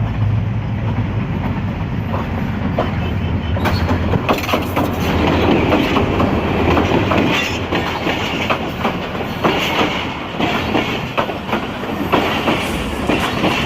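Pakistan Railways passenger train passing close by: a steady low engine hum for the first several seconds, then the coaches' wheels clicking in quick succession over the rail joints to the end.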